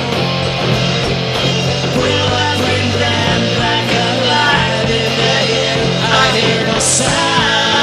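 A three-piece rock band playing live: electric guitar, bass guitar and a drum kit, with a singing voice. There is a cymbal crash near the end.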